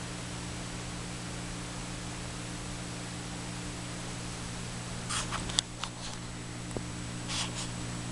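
Steady hiss with a low electrical hum: the camera's own recording noise in a quiet room. From about five seconds in, a few short soft rustles and clicks break in, the sharpest one a little after five and a half seconds.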